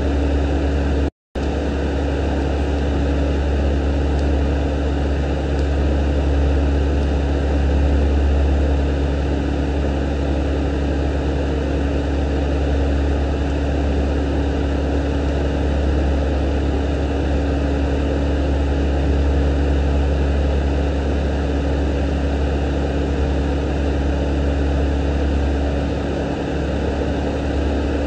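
Steady low mechanical hum with a constant drone, cut off completely for a split second about a second in.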